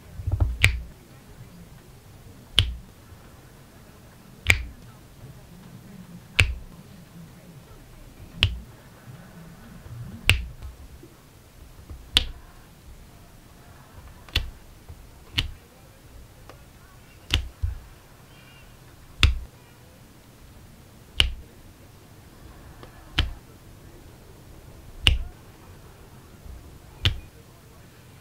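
Resin diamond-painting drills being pressed one by one onto the adhesive canvas with a drill pen, a sharp click about every two seconds, now and then two in quick succession.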